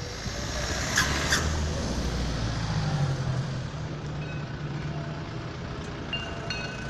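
A motor vehicle's engine running past, loudest in the first few seconds and then fading, with two sharp clicks about a second in.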